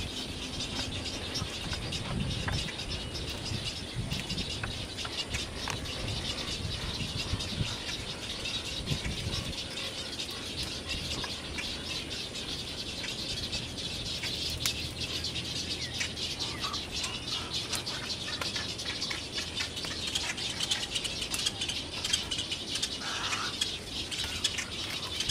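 Steady chatter of a nesting waterbird colony: a dense mix of chirps and fine clicking, rattling calls.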